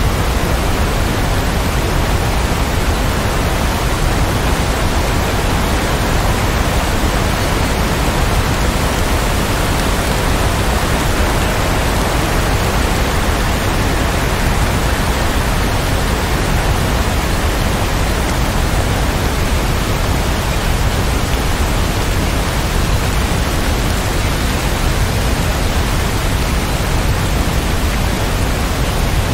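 Steady rain: an even, unbroken hiss.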